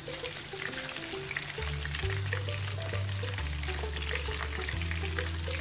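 Oat-coated chicken pieces deep-frying in hot oil, a steady crackling sizzle of small pops. Background music with a stepping bass line comes in about a second and a half in.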